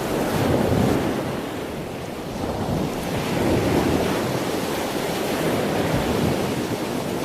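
Waves washing: a steady rushing noise that swells and eases slowly.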